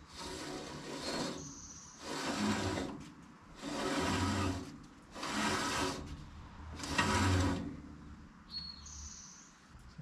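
Woodland Mills HM130 MAX band sawmill's new blade and band wheel grinding as the wheel is turned by hand in five pushes, one every second and a half, with a short high squeak twice between them. The wheel turns hard after the blade change; the owner suspects an over-tensioned blade, a twisted blade guide or the WD-40 used to clean the blade.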